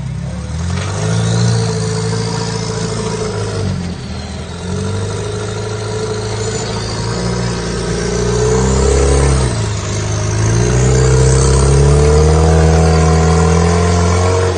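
Rock-crawler buggy's engine revving hard under load as it claws up a near-vertical rock face. The revs rise and fall, dropping off briefly about four seconds in and again near ten seconds, then climbing again.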